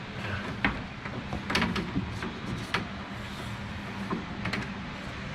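A steady low hum, likely a fan, under a few short, sharp clicks and knocks from plumbing parts and tools being handled.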